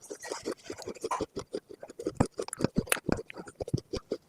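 Close-miked chewing of a crunchy food: a dense, irregular run of crisp crackling crunches.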